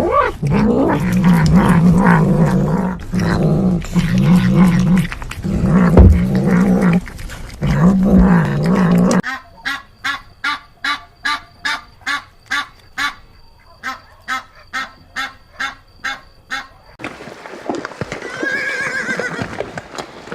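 A series of animal calls: a low wavering call repeated in four or five long phrases, then a regular run of clicks about two a second, then a higher call that rises and falls near the end.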